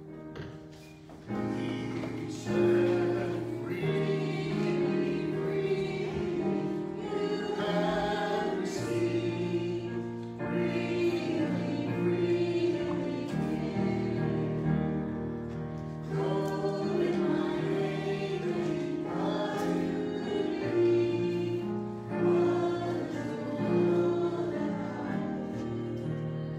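Voices singing a slow hymn refrain to piano accompaniment, coming in about a second in, with short breaks between phrases.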